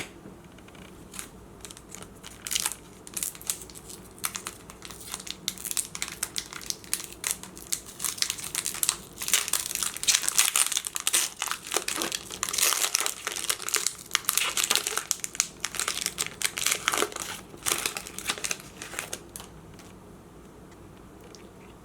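Foil wrapper of a Pokémon TCG booster pack crinkling as it is handled and torn open, in irregular crackles that stop about two seconds before the end.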